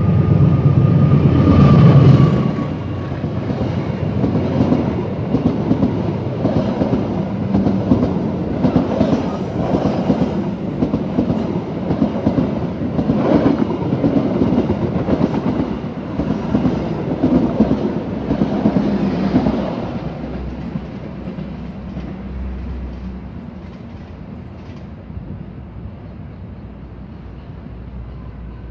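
Diesel-electric locomotive passing close by, its engine hum loudest in the first two seconds, followed by a long rake of passenger coaches clattering over the rails. The clatter fades away after about twenty seconds as the train moves off.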